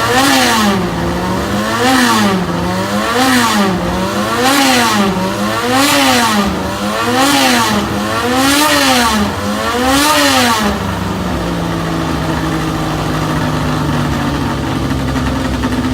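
Racing engine revved with repeated throttle blips, about eight rises and falls roughly a second and a half apart. It then settles to a steady idle for the last few seconds.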